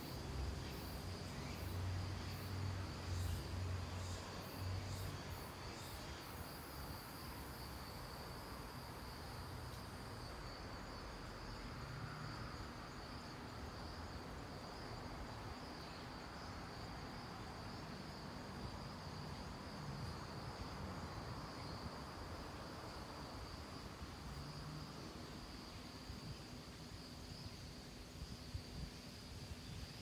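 A steady high-pitched insect trill, like a cricket's, over wind rustling the leaves of the trees. Wind buffets the microphone with low rumbles in the first five seconds, and a second, higher hiss sounds for a few seconds near a quarter of the way in.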